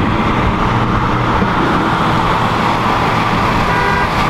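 Steady engine and road noise heard from inside the cabin of a 2016 Ford Focus RS cruising on a highway, with no clear revving.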